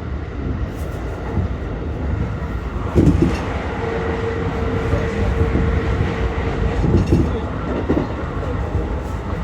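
Interior running sound of a JR West 223 series 2000 subseries electric train, fitted with a Hitachi IGBT inverter, travelling at speed: a steady rail rumble with the wheels knocking over rail joints a few times. A steady hum sounds for about three seconds in the middle.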